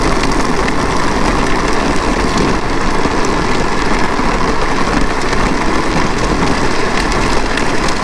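Steady rush of wind over the microphone and bicycle tyres rolling on asphalt as the bike is pulled along at speed by a running dog.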